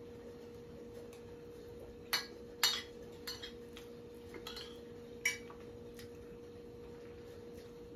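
A metal spoon clinking and scraping against a ceramic plate in about five short, sharp taps between about two and five seconds in, over a faint steady hum.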